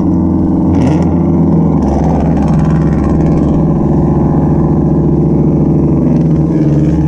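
Inboard engines of a large charter fishing boat running with a steady, loud drone as it passes within feet alongside, its propellers churning the water.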